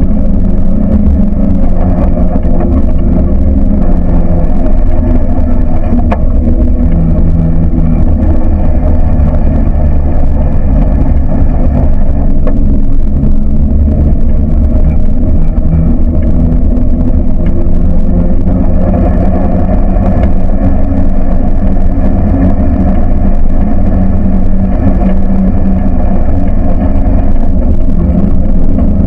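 A buggy's engine running loud and steady over a heavy low rumble, its pitch stepping up and down a little with the throttle as it drives.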